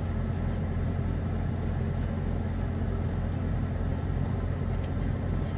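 Steady low engine and road rumble inside the cabin of a 1995 Mitsubishi Pajero Mini.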